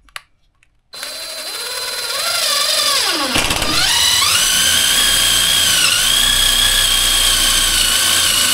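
Power drill running: a click, then the motor spins up with a rising whine, bogs down briefly about three and a half seconds in as it bites into the plywood, and recovers to a steady high-speed whine.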